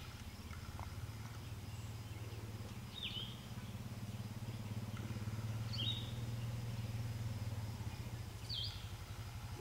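Quiet outdoor ambience: a songbird gives short rising chirps about every three seconds over a faint low hum.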